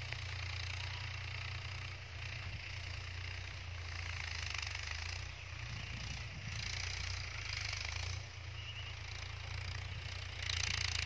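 Mahindra Yuvo 275 DI tractor's three-cylinder diesel engine running steadily under load as it pulls a cultivator through ploughed soil, a low steady hum, with a hiss over it that swells and fades.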